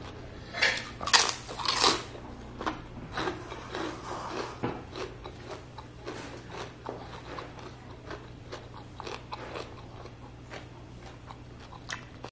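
Close-miked chewing of crispy battered fried chicken skin, with a few loud crunches in the first two seconds, then steady, quieter chewing clicks.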